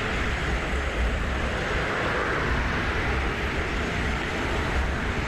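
Steady city road traffic: a continuous wash of passing cars with a low rumble underneath.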